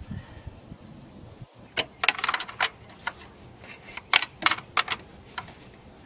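Sharp, irregular metal clicks and clinks of a 9/16 wrench tightening the adapter fitting into the ICP sensor port of a 6.0 Powerstroke diesel, in a quick cluster about two seconds in and a few more around four to five seconds in.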